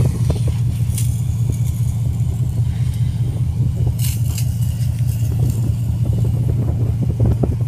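Steady low rumble on a ship's open deck at sea, with a few short hisses about a second in and around four seconds in.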